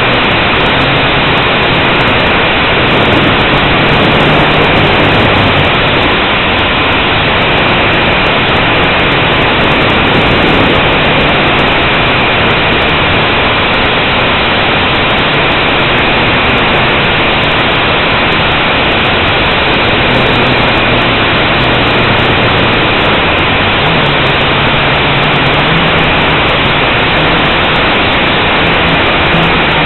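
Blade 180 quadcopter's electric motors and propellers heard through its onboard camera: a loud, steady whirring rush with a constant high whine, the low hum swelling and easing a few times as the throttle changes.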